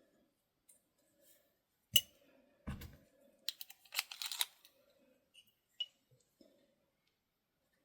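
A sharp click and a knock, then a short hiss of aerosol lubricant being sprayed into a padlock, and one more click a little later.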